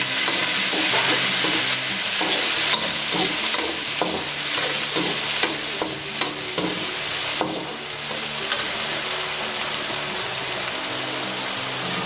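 Chopped onions sizzling in hot oil with mustard seeds and cumin in a metal kadhai, stirred with a perforated steel spatula that scrapes and taps against the pan now and then. The sizzle eases slightly about halfway through.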